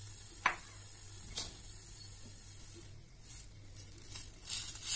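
Thin fish curry sizzling quietly in an aluminium kadai, with a couple of light taps against the pan. Near the end a metal spatula starts stirring and scraping the pan, and the sizzling grows louder.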